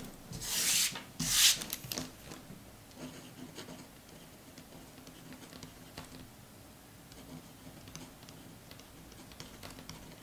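A 0.5 mm gel pen writing on a paper test card: two louder rubbing strokes in the first second and a half, then the faint scratching of handwriting.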